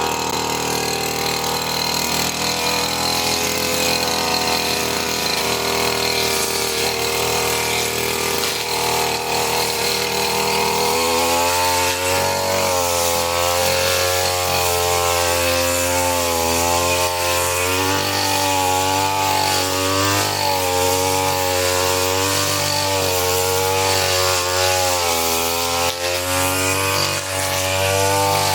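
WADFOW 30.5 cc brushcutter engine running steadily, then from about eleven seconds in its speed rises and falls over and over.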